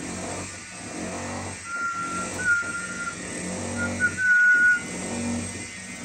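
Alexandrine parakeet whistling two held, steady notes, the second one louder, over a continuous low drone.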